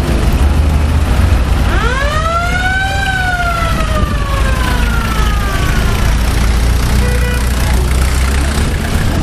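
Low steady rumble of World War II Jeep engines running at a crawl. Over it, a siren winds up sharply, peaks, then slowly winds down over about three seconds. A brief beep follows near the end.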